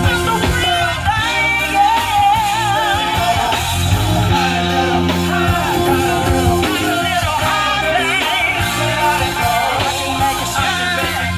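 Live band playing, with a singer's voice over bass, guitar and drums.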